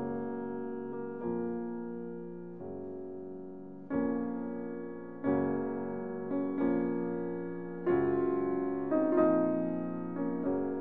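Background piano music: slow chords, each struck and left to fade before the next.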